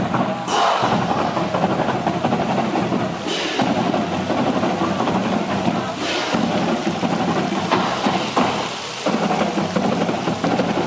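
Fountain jets splashing into a pool with a steady rush of water, swelling in a surge of spray about every three seconds.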